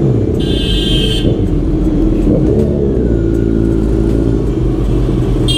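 Motorcycle engine running in low gear at walking-to-jogging pace through traffic, its pitch shifting with small throttle changes. A vehicle horn beeps for about a second shortly after the start, and a horn sounds again near the end.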